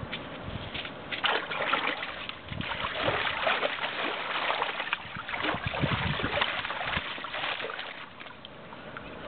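A dog splashing in a shallow plastic paddling pool, pawing and stomping through the water in a run of irregular splashes that ease off near the end.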